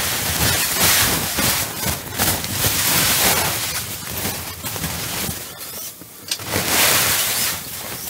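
Snow sliding off the fabric roof of a steel-framed pop-up canopy as the roof is pushed up from beneath, in several rushing swooshes with fabric rustle. It is shedding a snow load heavy enough that the canopy nearly collapsed.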